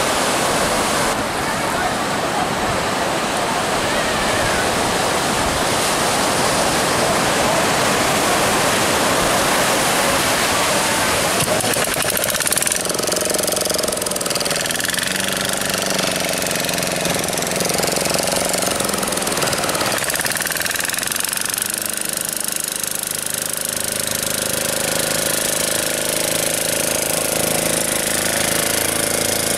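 Surf washing on the beach, then a small boat outboard motor starts about twelve seconds in, changes pitch a few times, and settles into a steady run as the wooden fishing boat motors out through the breaking waves.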